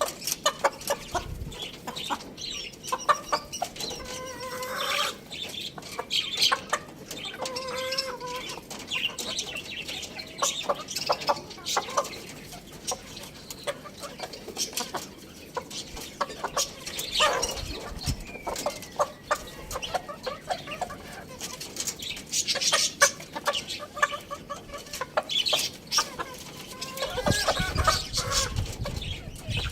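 Domestic chickens clucking, with short pitched calls scattered among many quick clicks and taps.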